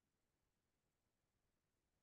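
Near silence: faint background noise of an online call.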